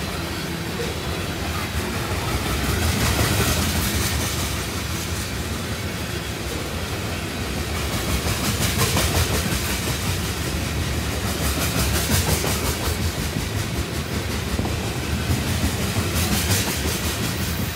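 Freight train of tank cars rolling past close by: a steady rumble of steel wheels on the rails, broken every few seconds by runs of quick clicking as wheel sets pass.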